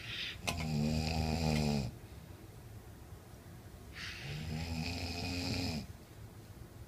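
A man snoring in his sleep: two long buzzing snores, about three and a half seconds apart, with quieter breathing between them.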